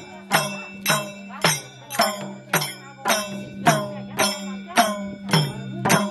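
A pair of madal hand drums played together in a steady, even beat of about two strokes a second, each stroke ringing briefly.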